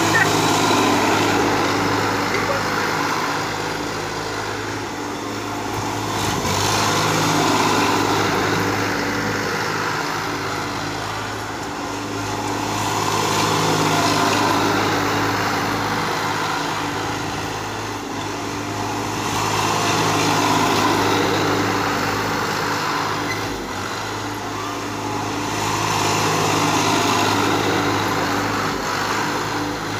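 Sonalika 740 DI tractor's diesel engine running at full speed as the tractor drives in circles over paddy straw to thresh it. The steady engine note swells and fades each time the tractor passes, about every six and a half seconds.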